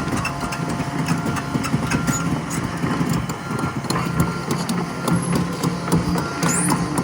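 Komatsu PC138USLC-11 excavator's diesel engine running steadily, with a dense patter of clicks and short high beeps now and then.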